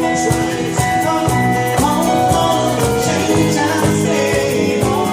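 Live band music: a singer's voice over sustained chords, bass and a steady drum beat.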